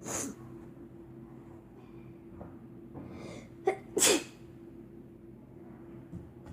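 A girl with a cold sneezing: a short burst right at the start, then a quick breath in and a loud, sharp sneeze about four seconds in.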